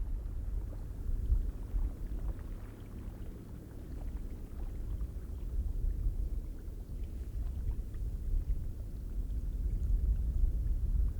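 Icelandic geyser rumbling low and steadily, with faint scattered splashes, slowly growing louder.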